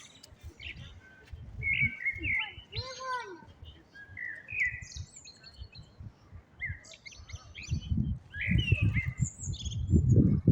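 Common blackbird singing: warbled phrases with high twittering ends, one every second or two. Low rumbling noise runs underneath and grows stronger near the end.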